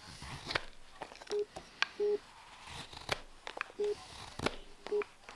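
A carving knife cutting a green-wood spoon blank: a run of sharp, irregular cutting clicks and scrapes, with several short squeaks of one steady pitch.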